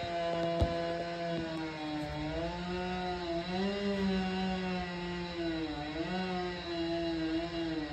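Two-stroke gas chainsaw running steadily, its engine pitch rising and dipping a few times as the throttle is worked.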